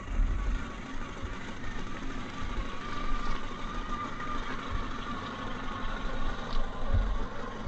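Electric motor and geared drivetrain of a Gmade GS02F Buffalo RC crawler whining steadily as it drives, with low rumbles and a few thumps underneath.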